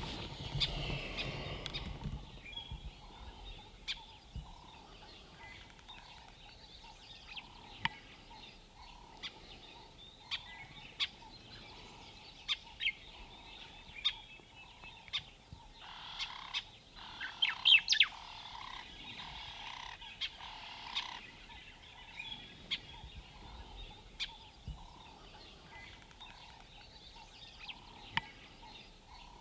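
Dusk bush ambience: birds calling, with a soft call repeated about twice a second and sharp chirps scattered over it, the loudest cluster about halfway through. A rush of wind noise fades out in the first couple of seconds.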